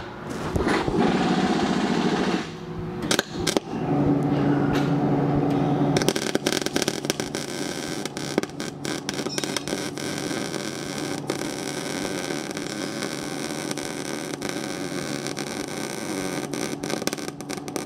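MIG welding arc crackling steadily as a bead is run along the seam of a steel driveline tube, starting about six seconds in. Before that there are a few seconds of shop handling noise and a brief steady hum.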